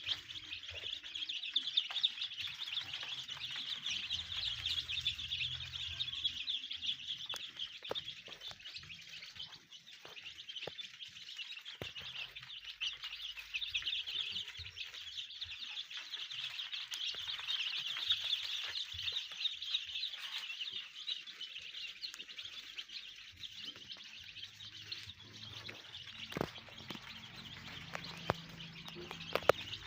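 A brood of about 150 day-old chicks peeping continuously, a dense chorus of overlapping high cheeps, with a few faint knocks.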